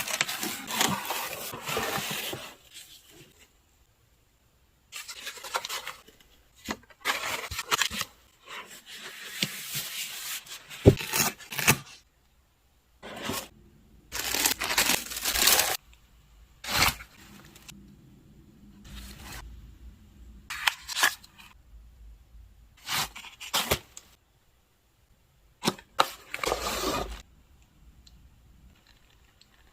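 Gift packaging being handled and opened: paper rustling and tearing, with scrapes and a few sharp clicks, in irregular bursts separated by quiet pauses.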